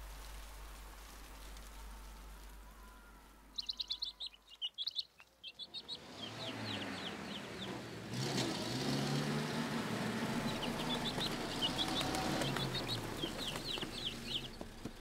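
Sparrows chirping in quick high runs. About six seconds in, the low rumble of an old truck's engine comes in and keeps going under further chirping.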